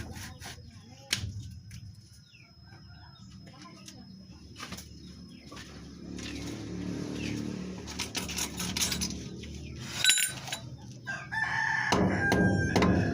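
A rooster crowing, loudest near the end, with scattered sharp clicks and knocks throughout.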